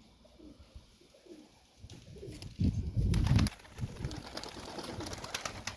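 Domestic pigeons cooing softly in a loft. About halfway through there is a loud burst of rustling, followed by a run of light clicks and knocks.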